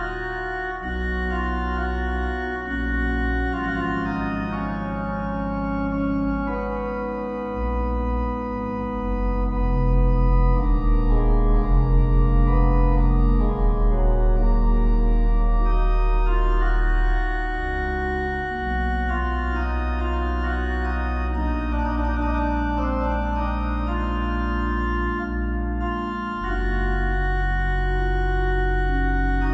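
Slow, calm organ music: sustained chords over deep held bass notes, changing every few seconds, with a fluttering swell near the middle.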